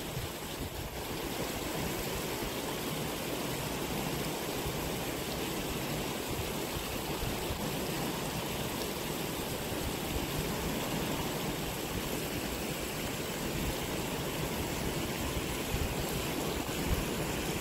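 Steady rush of flowing water in a shallow stream.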